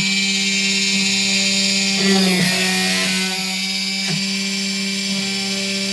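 Drill spindle motor on a 3D printer converted for drilling circuit boards, running steadily with a constant pitched hum and hiss, briefly disturbed about two and four seconds in.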